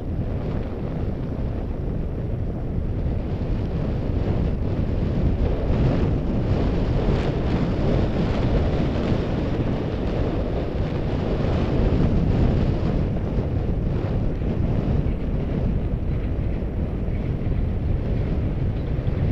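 Wind noise buffeting the microphone of a camera on a moving bicycle: a steady, deep rushing sound.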